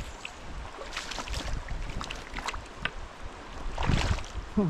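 Footsteps clicking and scraping over loose, slippery slate, with wind rumbling on the microphone in gusts that swell about four seconds in.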